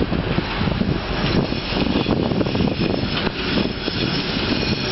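ST44 (Soviet-built M62 'Gagarin') diesel locomotive's two-stroke V12 engine running loud and steady as it approaches hauling a freight train.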